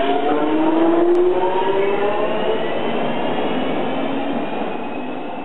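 Electric subway train pulling away, several tones of its traction motor whine rising slowly in pitch over rail noise, the whole sound gradually fading.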